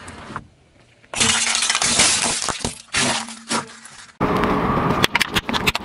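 A car tyre rolling over and crushing brittle objects on asphalt: cracking, crunching and snapping, in several short takes cut together with a brief quiet gap about half a second in.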